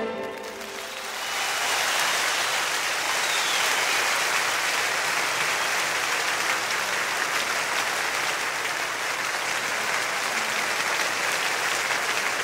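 Audience applause: many hands clapping at once, swelling in about a second in and then holding steady.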